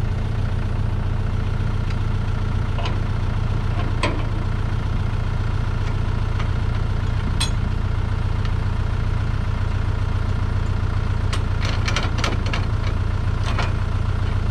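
Tractor engine running steadily at idle, with scattered sharp clicks and rattles, several in a cluster near the end.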